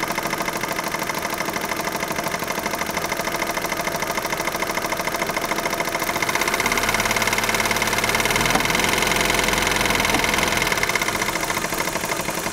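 Opel Astra H 1.6-litre four-cylinder petrol engine (Z16XER) running at idle with a fast, even ticking clatter. About halfway through, a deeper hum joins for a few seconds and the engine runs a little louder.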